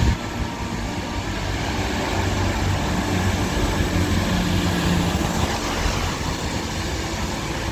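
Road traffic on a rain-wet street: cars and a small box truck driving past, tyres hissing on the wet asphalt over the low hum of their engines, growing a little louder about halfway through as the truck passes.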